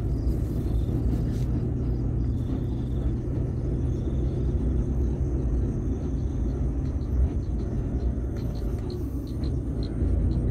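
Car driving slowly over a rough road, heard from inside the cabin: a steady low engine hum and tyre rumble.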